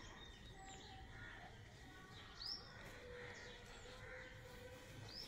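Near-quiet background with a few faint, short, high bird chirps, the clearest about two and a half seconds in.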